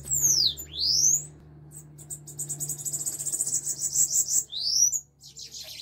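Bananaquits (sibites) calling while fighting in a cage: two sharp high whistles, the first falling and the second rising, then a fast high buzzy trill, and another rising whistle near the end.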